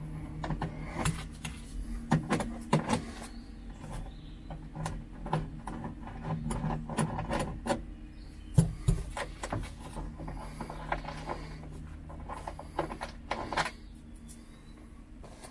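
A wrench working loose the rear-seat mounting bolts in a car's steel floor pan: irregular metal clicks and clinks, with a louder knock about eight and a half seconds in. A steady low hum runs underneath.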